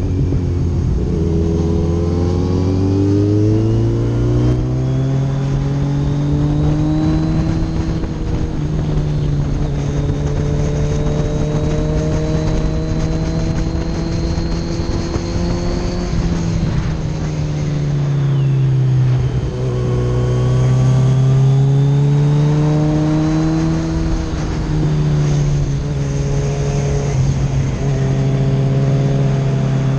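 Kawasaki Z900RS inline-four engine heard from on the bike while riding. The revs climb, hold steady, dip and climb again through the bends, with a sudden jump in pitch about three-quarters of the way in.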